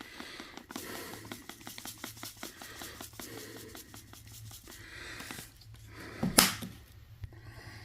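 Dried Italian seasoning being shaken out of its container over a bowl of meatloaf mix: a quick run of light ticking and rattling, thinning out, then one louder clack near the end.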